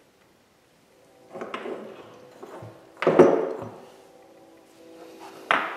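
Heavy brake-caliper pieces being handled and set down on a wooden bench: a clatter about a second in, a loud thunk about three seconds in, and a sharp knock near the end, over faint background music.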